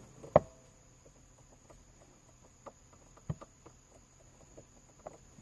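Faint, scattered clicks and taps of fingertips pressing a sticker overlay onto a car's push-button start switch, with a sharper click about half a second in and another about three seconds in. A faint steady high whine sits underneath.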